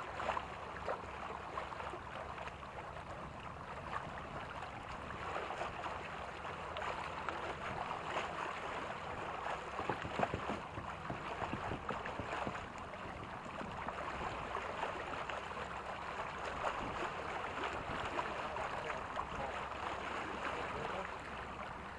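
Lake water washing and splashing against a moving sailboat's hull close to the microphone: a steady rush with frequent small, irregular splashes.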